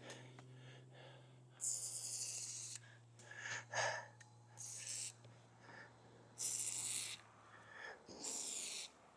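Aerosol lubricant sprayed onto a mini pruning chainsaw's bar and chain in four short hissing bursts, the first the longest at about a second.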